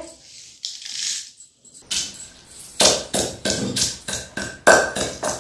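Roasted fenugreek seeds, cumin and dried red chillies rustle as they are tipped from a pan into a stone mortar. About two seconds in, a wooden pestle starts pounding them in the stone mortar, about three strokes a second.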